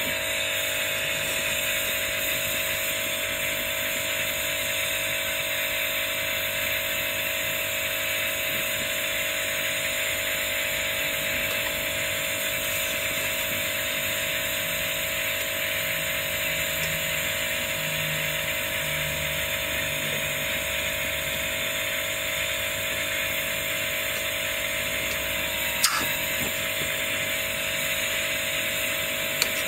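Gas torch flame hissing steadily as it heats a copper cabochon for keum boo, with two short sharp clicks near the end.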